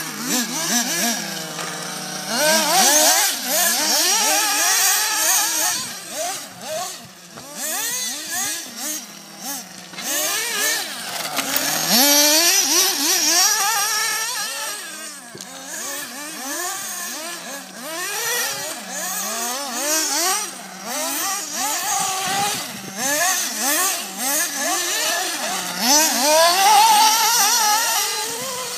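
Two 1:8-scale RC buggies, a Thunder Tiger EB4 and a Carson Specter, racing around, their motors' whine rising and falling over and over as they accelerate and slow down, with a steady hiss underneath.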